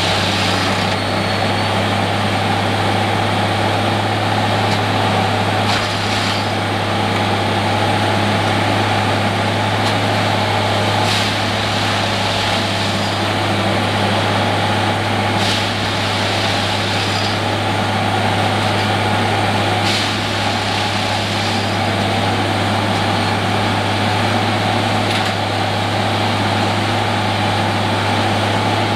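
Plasser tamping and lining machine at work on the track: its diesel-hydraulic power plant runs with a steady deep hum and drone, under a haze of mechanical noise. A short burst of noise stands out about every four to five seconds.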